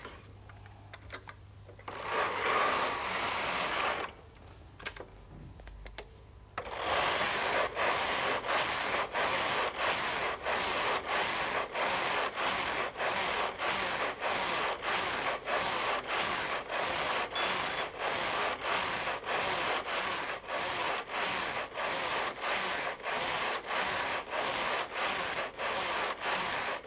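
Brother KH-950i knitting machine carriage pushed back and forth across the needle bed, knitting a programmed pattern: one pass about two seconds in, then continuous passes from about a quarter of the way in, with brief breaks about twice a second.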